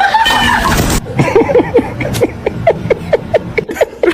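A cat making a rapid string of short, high little calls, about four a second, with soft clicks between them, starting about a second in.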